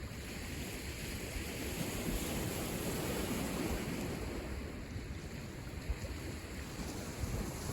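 Lake Michigan waves washing onto the shore in a steady rush, swelling slightly midway, with wind rumbling on the microphone.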